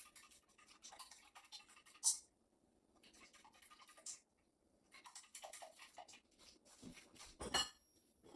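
Kitchen handling noises: dishes and utensils clinking and knocking, with two louder sharp knocks, one about two seconds in and one near the end.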